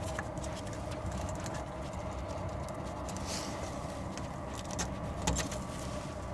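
Faint scraping and a few light clicks from a new glow-plug screen being pushed into its seat in a diesel heater's burner, over a steady low hum.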